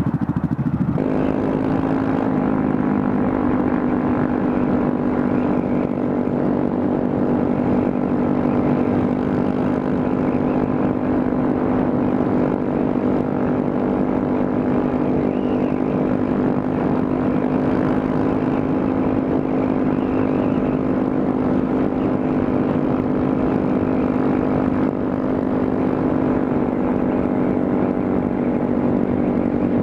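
Honda Grom's single-cylinder engine running at a steady pitch with its muffler gone, an even drone.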